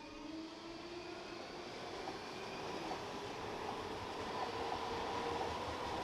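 Train pulling away: a whine that climbs in pitch and then holds steady, over a low rumble that grows steadily louder.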